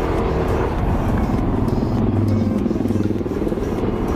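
Yamaha Mio Soul i 125 scooter's single-cylinder engine running as it rides off, its pitch rising and falling with the throttle about halfway through.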